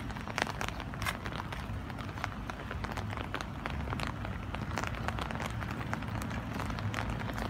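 Steady rain, with many close, separate drops ticking over a continuous hiss and a low rumble underneath.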